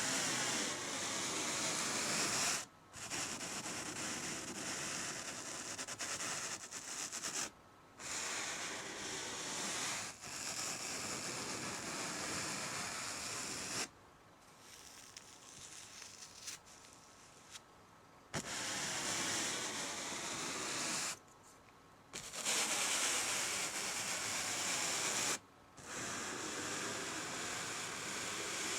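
A house painting brush swept across canvas in long strokes of a few seconds each: a dry, scratchy hiss that breaks off briefly between strokes and goes faint for a few seconds about halfway through.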